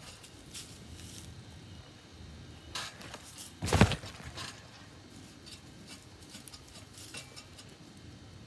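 A trampoline mat taking a person's weight: a lighter thump, then one loud, deep thud about four seconds in as she lands a seat drop (butt drop) on the mat.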